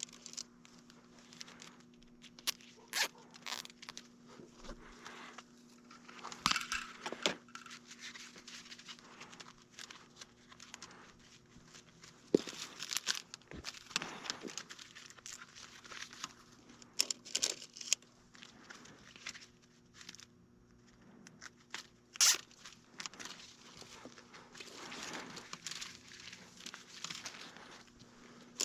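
Hands handling cable and gear in a utility tub: scattered rustling, scraping and sharp clicks, a few louder knocks, over a faint steady hum.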